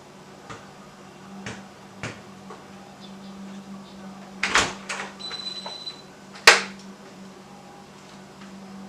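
Hunter Vista ceiling fan coasting down after being switched off. A steady low hum runs under a few scattered clicks and knocks, and the loudest knocks come about four and a half and six and a half seconds in.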